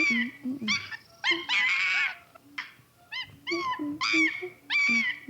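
High-pitched animal calls: a string of short yelps and squeals that rise and fall in pitch, with a longer squeal about two seconds in, repeating as a loop about every five seconds.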